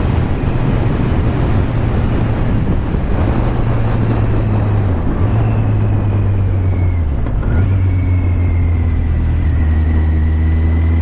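2016 Kawasaki Z800's inline-four engine running at road speed, heard with wind rush through a helmet-mounted microphone. The engine note dips briefly twice, about five and seven seconds in, then holds steady.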